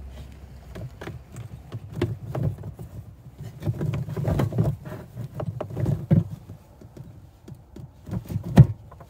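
A thick rubber RV shore-power cord being handled in its metal-lined compartment: irregular rustling, dragging and knocking as the coil is moved, busiest in the middle, with one sharp knock near the end as the plug at the junction box is gripped.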